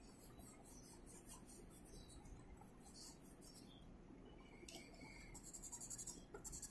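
Faint scratching of coloured pencils on paper: quick back-and-forth shading strokes, growing a little louder near the end.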